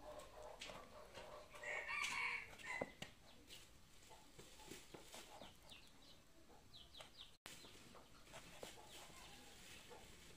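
A rooster crows once in the background about two seconds in, over faint clicks of a knife slicing meat on a wooden chopping block; a few short high chirps follow later.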